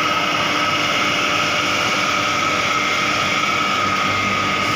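Gas burner of a 600,000 kcal thermal oil heater firing on a test run, with its combustion blower: a steady rushing noise with a constant high whine through it.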